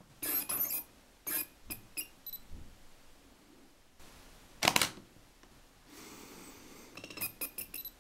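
Faulty supersonic wave drive focus motor in an Olympus Zuiko 12-60mm SWD lens, making short high-pitched bursts of noise as it focuses, in several quick runs, with one louder, fuller burst about halfway through. The noise is the sign of a fault in the supersonic motor that drives the focus.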